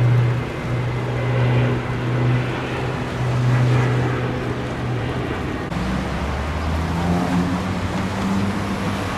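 A motor vehicle's engine running steadily over road and tyre noise, its hum shifting to a different pitch about six seconds in.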